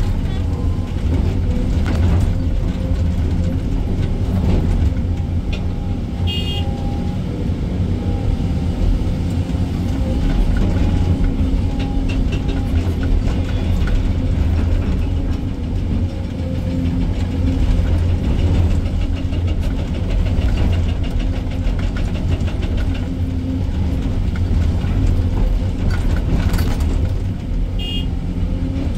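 SANY 305 crawler excavator's diesel engine running steadily under work, heard from the operator's cab, with a few short sharp clanks.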